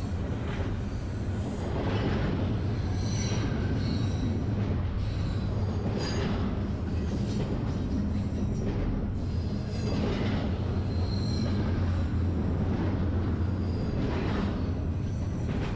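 Freight train on a tight curve: a steady low rumble with short high-pitched wheel squeals coming and going.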